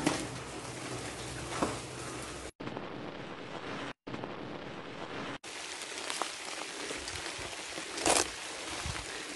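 Heavy rain falling, a steady hiss that cuts out briefly twice around the third and fourth seconds. About eight seconds in there is one short, loud thump.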